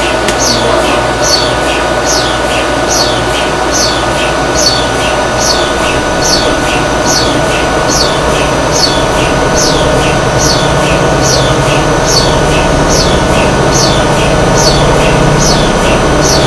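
HTS DC induction heating machine running, its electric motor turning the aluminium billet in the superconducting magnet's field: a steady machine hum with several whining tones and a high chirp that repeats a little more than once a second. The low hum grows stronger over the last few seconds.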